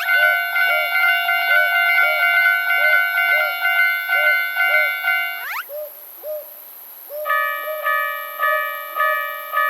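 Japanese railroad crossing warning bell ringing its rapid "kan-kan", about two strikes a second. It stops about five and a half seconds in with a quick rising sweep. After a short pause a second crossing bell, slightly lower in pitch, starts ringing at the same pace.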